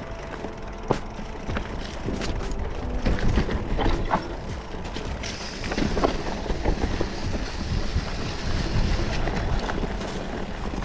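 Electric mountain bike riding a dirt trail: tyres rolling over dirt and rocks and the bike rattling over bumps, with wind buffeting the microphone.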